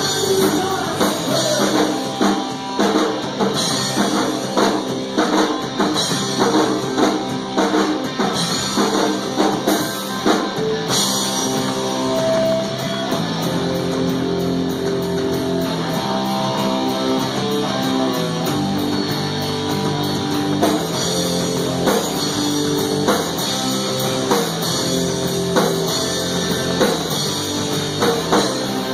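Live rock band playing: electric guitars over a drum kit, with steady driving drums.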